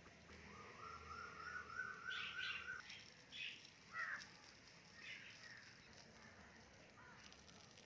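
Faint small birds chirping in short calls, with one long whistled note that climbs slightly in pitch from about half a second to three seconds in.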